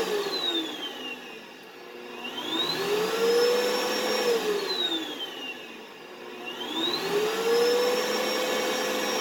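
Vacuum cleaner motor whining, its pitch and loudness falling away just after the start, climbing back about 2.5 s in, falling again about 4.5 s in and rising once more about 7 s in: the motor spinning down and back up repeatedly. The vacuum is running again on its repaired circuit board.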